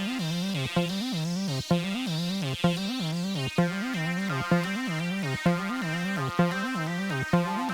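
Electronic beat music: a synthesizer line with bending, wobbling pitch, looping over a steady pulse that hits about once a second.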